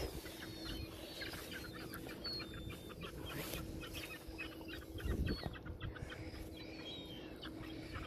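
Birds calling in a quick run of short, squawky calls, with a low bump about five seconds in.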